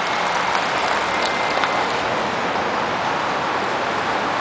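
Steady outdoor hiss: an even wash of noise with no distinct events.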